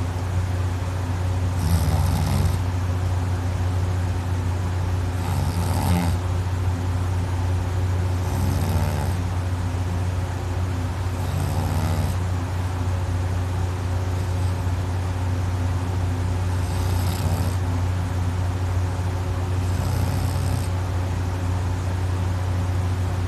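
Heavy snoring of a person passed out drunk on her back, her soft palate and uvula fluttering, with a rasping breath about every three to four seconds. A steady low hum runs underneath.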